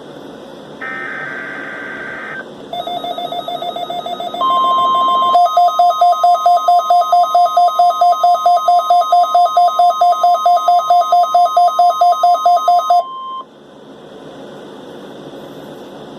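NOAA Weather Radio weekly test alert: two bursts of the warbling digital SAME header tones, then a weather alert receiver's alarm beeping rapidly, about four beeps a second, becoming louder about five seconds in. Over the beeping, the steady 1050 Hz warning alarm tone sounds for about nine seconds. Both cut off together, leaving faint radio hiss.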